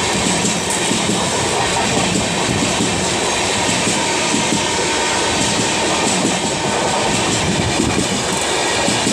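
Two trains crossing at speed, heard through an open coach window: the passing express's coaches rush by in a steady, loud rush of wheel-on-rail and wind noise with some clatter.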